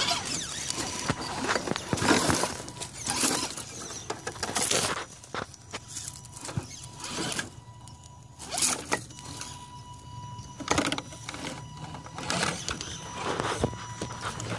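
Small electric motor and gearbox of an Axial SCX10 RC rock crawler whining at low speed, with a steady high-pitched tone, as the truck creeps over rocks and concrete slabs. Repeated short scrapes and crunches break in over it.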